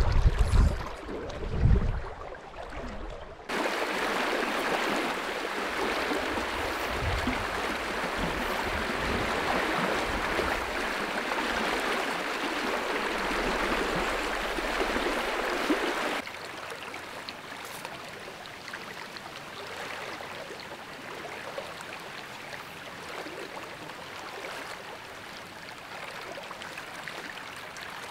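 Steady rush of a fast-flowing river, with low thumps on the microphone in the first few seconds. About sixteen seconds in, the rushing drops suddenly to a quieter level.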